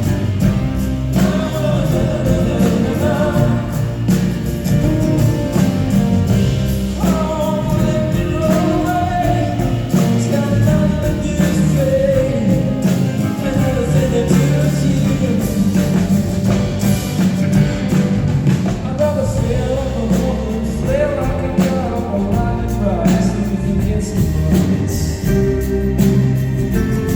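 Band music with singing: wavering sung lines over a full, steady accompaniment.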